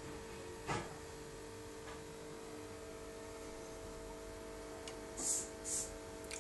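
A steady electrical hum of aquarium equipment, with a click about a second in and two short high hisses near the end.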